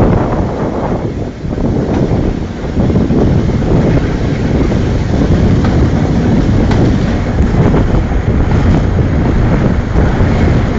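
Wind buffeting the microphone over the running noise of a moving train locomotive: a loud, steady rush of noise that dips briefly about a second in.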